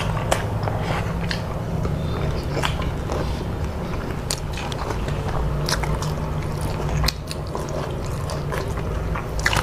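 Eating sounds of two people eating rice and curry with their hands: chewing with many short, scattered wet clicks, over a steady low hum.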